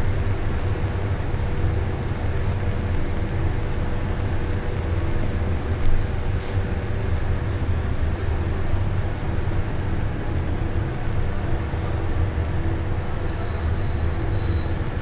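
Split air conditioner running with a steady low hum and a faint constant tone, and a short high beep near the end.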